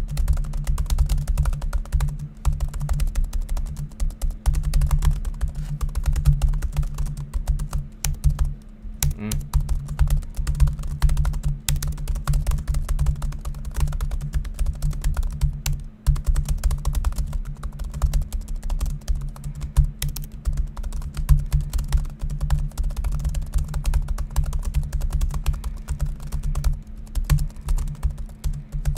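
Fast, continuous typing on the Asus Zenbook Flip S UX370UA's low-travel (1 mm) laptop keyboard, at about 89 words per minute. The keys make dense, irregular clicks, with dull low thuds from each stroke.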